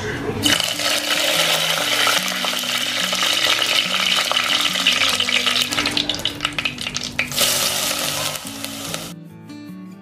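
Hot coconut oil sizzling and crackling loudly in a clay pot as curry leaves and seeds fry in it, with soft background music underneath. The sizzling cuts off abruptly near the end, leaving only the music.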